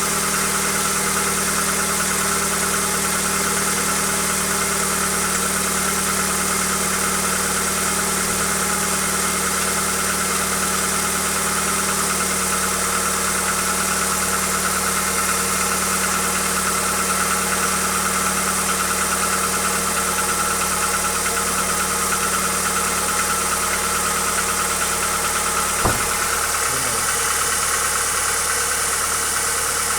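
Hyundai Accent engine idling steadily with the knock the owner is recording as an engine fault. A single sharp click comes near the end.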